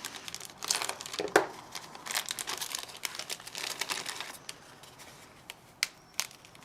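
Plastic kit packaging crinkling and rustling as parts are handled and unwrapped, with a few sharp clicks near the end.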